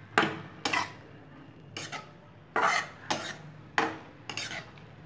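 Spatula scraping and stirring through grated vegetables in a metal kadai, in about seven short strokes at an uneven pace.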